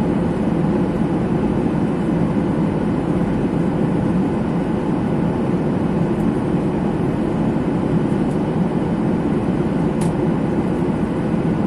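Airliner cabin noise: a steady, even rush of engine and air noise heard inside the passenger cabin.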